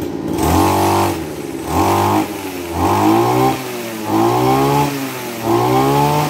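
Kawasaki TJ27 brush cutter's 27cc two-stroke engine being revved in about six quick throttle blips, roughly one a second, the pitch climbing and dropping back toward idle each time.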